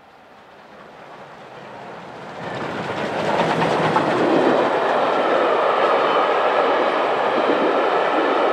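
Steam-hauled express passing at speed: rebuilt Bulleid Merchant Navy Pacific 35028 Clan Line, a three-cylinder steam locomotive, comes up from faint to loud over the first three seconds as it rushes by close, then its train of Pullman coaches keeps rolling past with a steady clatter of wheels on the rails.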